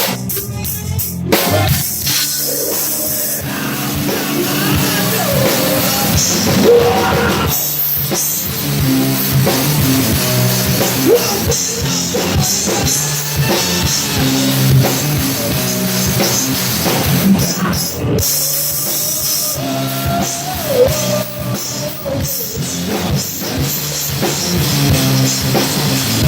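Live rock band playing, with drum kit and electric guitar, recorded with poor, distorted sound.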